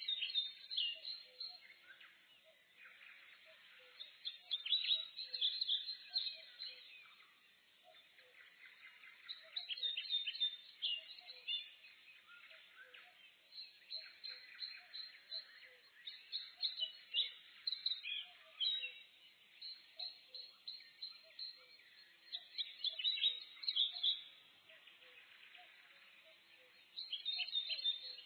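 Forest birds singing: bursts of quick chirping song phrases come every few seconds over a faint steady background hiss.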